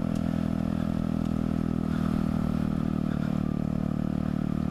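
Mutt Hilts 125's air-cooled single-cylinder engine running at a steady pace while the bike is ridden along a gravel and dirt track.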